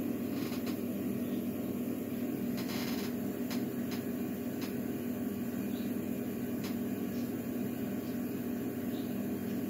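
Steady background hum, like a fan or mains hum, with a few faint light clicks of small metal lock parts being handled.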